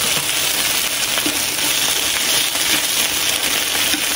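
Slices of pork belly sizzling steadily on a hot grill, with scattered small pops and crackles of fat.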